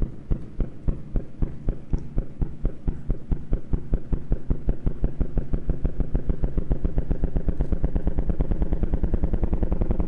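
Simulated gravitational-wave sound of a light black hole falling into a much heavier one: low, drum-like thumps, each a bang of the small black hole on space as it swings close. The thumps come faster and louder until they run together into a continuous buzz near the end, as it plunges in.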